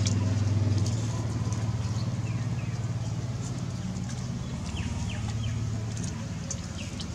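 Low, steady engine hum of a nearby motor vehicle, slowly fading away, with a few short, falling high-pitched chirps.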